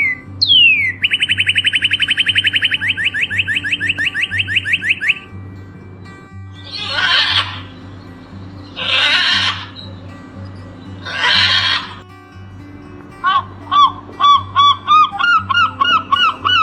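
A string of animal calls over a steady low background hum: a falling whistle and a fast bird-like trill of about four seconds, then three harsh calls about two seconds apart, then from about 13 seconds a quick run of short rising calls, about three a second.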